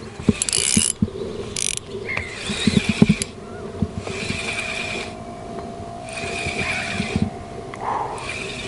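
Spinning reel ratcheting and whirring in repeated bursts of about a second as a fish is played on a deeply bent spinning rod, with scattered low knocks in between.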